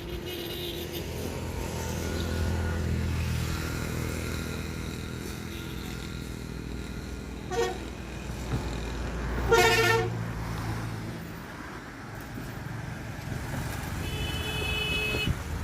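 Road traffic passing with a steady engine rumble and vehicle horns honking: a short honk, then a louder half-second honk about ten seconds in, and a higher-pitched horn near the end.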